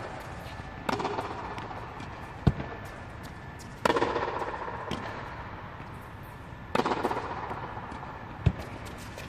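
Tennis ball struck hard by a racket about every three seconds, with sharper single knocks of the ball in between. Each hit is followed by a long echo in the air-supported dome hall.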